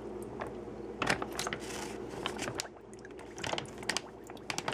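Whole Cornish game hen being lowered into brine inside a plastic zip-top bag: the liquid sloshes, most strongly about a second and a half in, while the bag crinkles and rustles with irregular small clicks.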